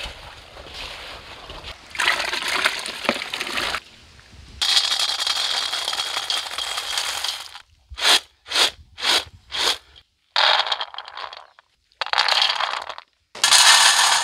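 Dry food handled in steel vessels, in several short takes. Hands mix flour-coated bitter gourd pieces in a steel bowl; then peanuts are tossed in a steel bowl in five quick shakes, throwing off their skins; near the end gathiya is poured onto a steel plate, the loudest part.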